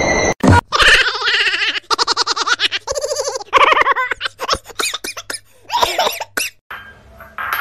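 High-pitched laughter in quick repeated bursts, with a few short sharp clicks in between.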